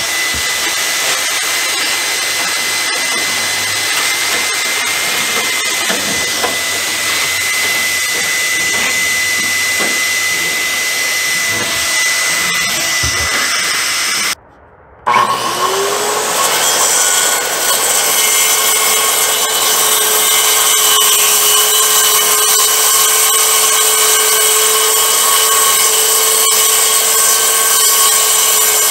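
Wet/dry shop vacuum running, its hose nozzle sucking out the floor of an aluminum truck toolbox: a loud steady rush of air with a thin high whine. About halfway through the sound cuts off abruptly, then a motor spins up with a rising whine and runs steadily at a lower pitch.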